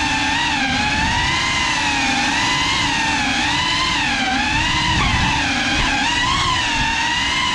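GEPRC Cinelog 35 FPV quadcopter's brushless motors and ducted propellers whining, the pitch rising and falling constantly as the throttle changes.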